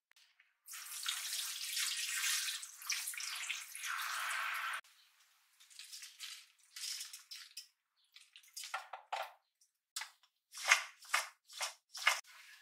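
Kitchen faucet sprayer running water over young radish greens in a sink for about four seconds. Then come short bursts of rustling and dripping as handfuls of wet greens are dropped into a stainless steel bowl, a few of them louder near the end.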